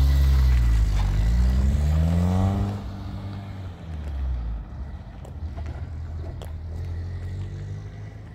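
Vehicle engine revving, its pitch rising for about three seconds, then dropping away to a lower, steady sound. A few faint clicks come later.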